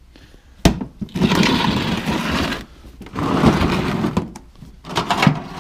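A toolbox lid clacks shut, then a toolbox is dragged across a concrete floor in two long scrapes, with a few knocks near the end.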